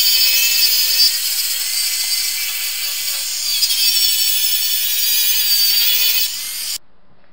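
Angle grinder with a flap disc grinding surface rust off the steel sliding-door runner and step of a VW T4 van, taking it back to bare metal: a steady high whine with grinding hiss that stops abruptly near the end.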